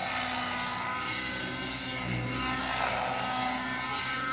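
Nitro RC helicopter in 3D aerobatic flight: its OS .91 two-stroke glow engine and rotor run steadily, the pitch rising and falling a little.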